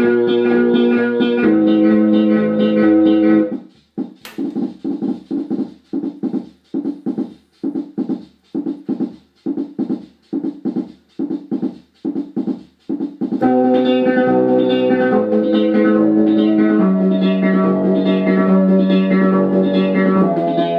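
1970 Orla Carousel electronic keyboard playing held chords, then around the four-second mark switching to a run of short, quickly dying notes at about two a second, before returning to held chords near the end.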